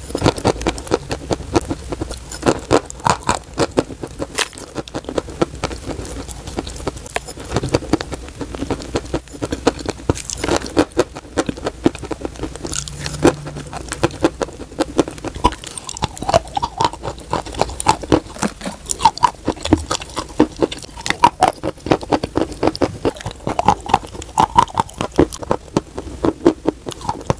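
Close-miked chewing and crunching of crumbly dry white clay: a dense, continuous run of sharp crunches and wet mouth sounds as the pieces are bitten and ground down.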